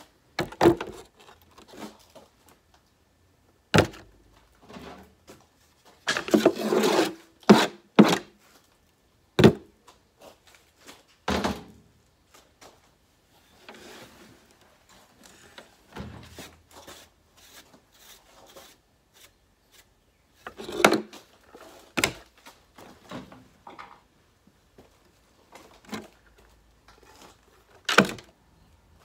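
Irregular knocks, clunks and short scrapes of hand tools and a metal strobe power-supply case being worked on and taken apart, with a longer rough scraping burst a few seconds in.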